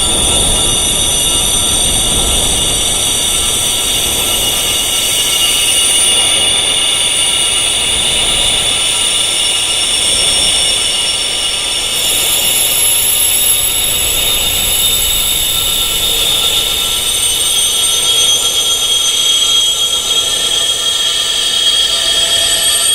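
Wind chimes tuned to tinnitus frequencies, ringing as a dense wash of many high-pitched tones that overlap and hold for seconds at a time. The highest tones change about twelve seconds in.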